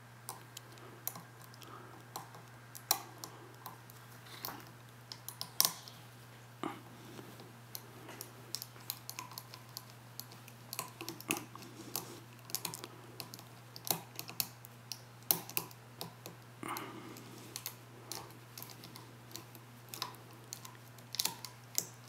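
A lock pick scraping and clicking inside the brass pin-tumbler cylinder of a Zeiss-Ikon cabinet lock as it is picked: many small, irregular metallic clicks, some louder than others, over a steady low hum.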